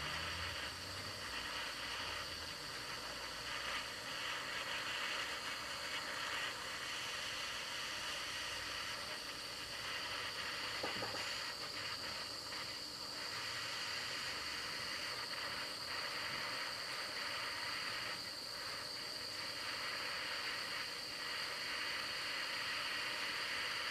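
Small handheld gas torch hissing steadily as its blue flame heats a thin wire to anneal it.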